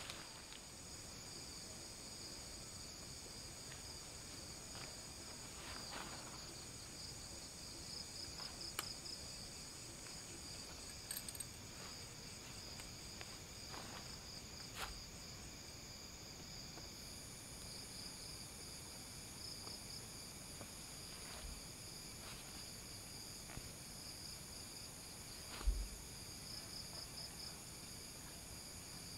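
Crickets and other night insects chirring steadily in several high, pulsing tones. Soft clicks and rustles from handling the tent's rainfly at the ground are scattered through, with one louder thump about 26 seconds in.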